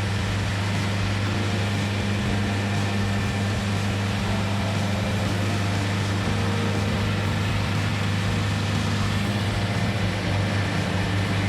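A machine's engine running steadily at one even pitch, a low hum that does not change.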